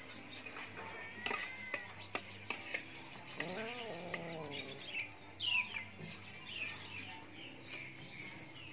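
Small birds chirping repeatedly, with quick falling chirps, over light clinks of a metal spoon against plates. A short low call rises and falls about halfway through.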